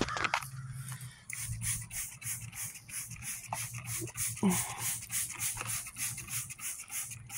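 Plastic trigger spray bottle pumped rapidly, a short hiss of spray with each squeeze, about three a second.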